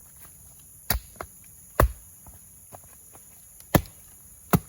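Four sharp, heavy blows on wood, struck at uneven intervals of roughly a second, as logs are cut or driven in for a road repair. A steady high-pitched drone of insects runs underneath.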